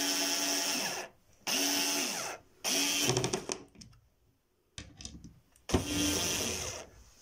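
Bosch cordless screwdriver motor running in four short bursts of about a second each, driving a screw into a cabinet door. A few light clicks come between the third and fourth bursts.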